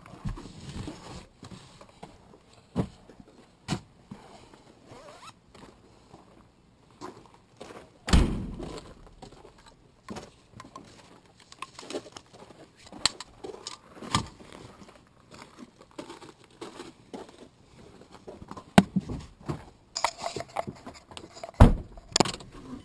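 Scattered knocks, thuds and rattles of handling a cardboard box in a hatchback's cargo area, with footsteps on gravel; one heavy thud about eight seconds in. A loud slam near the end as the tailgate is shut.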